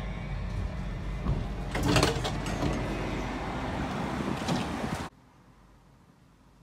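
Steady rumble of a public-transport vehicle's interior. About two seconds in comes a loud rush as its doors open, followed by a smaller one a couple of seconds later. The sound cuts off suddenly a little after five seconds to near silence.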